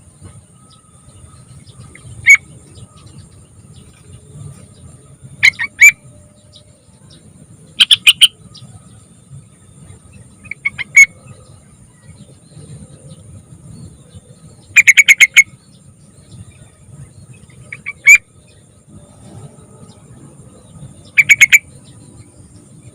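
Young yellow-vented bulbul (trucukan) singing: about seven short, loud phrases of quick bubbling notes, a few seconds apart. A faint low rumble runs underneath.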